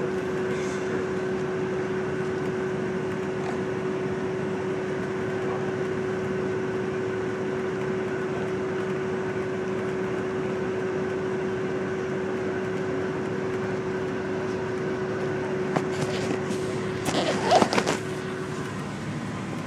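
Interior noise of a moving bus: a steady hum over constant rumble, with a brief louder sound with a bending pitch near the end, just before the hum stops.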